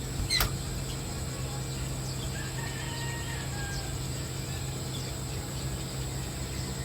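Steady outdoor background with a high, even insect drone, a single sharp click about half a second in, and a few faint bird calls in the middle.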